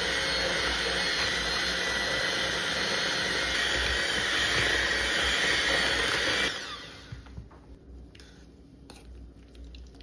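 Electric kitchen mixer running steadily with a motor whine, beating eggs into sugar and melted butter for muffin batter. It switches off suddenly about six and a half seconds in, followed by a few light knocks.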